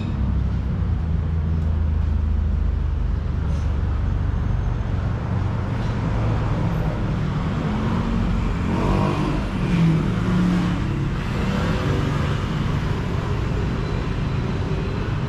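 Road traffic: a steady low rumble of car engines passing and idling, with a busier stretch a little past the middle.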